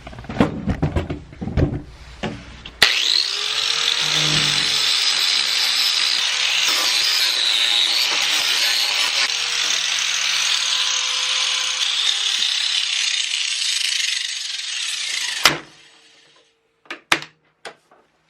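Angle grinder grinding down a welded steel patch on a car body panel: a loud, steady grind that starts about three seconds in and cuts off sharply about twelve seconds later. A few knocks and clicks come before and after it.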